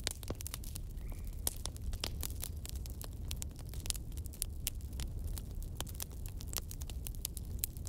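Log fire crackling: dense, irregular sharp pops and snaps over a low steady rumble.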